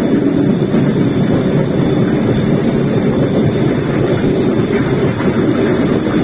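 A Cambodian bamboo train (norry) running along the rails at a steady speed, a loud continuous rumble of its wheels and motor.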